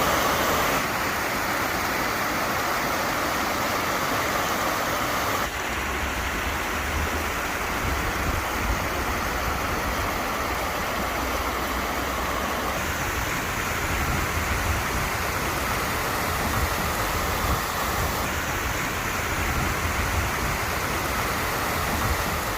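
Stream water rushing and splashing around stepping stones, a steady rush that shifts slightly in tone a few times, with a low rumble underneath from about five seconds in.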